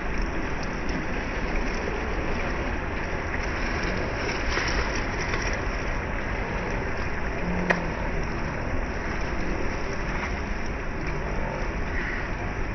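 Steady wash of small waves lapping onto a sandy, rocky shore, with wind rumbling on the microphone; one sharp click a little over halfway through.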